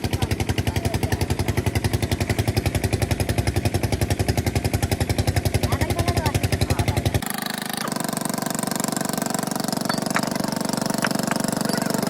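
An engine running with a strong, even pulsing beat, about eight beats a second. About seven seconds in it cuts abruptly to a steadier hum with a few sharp clicks.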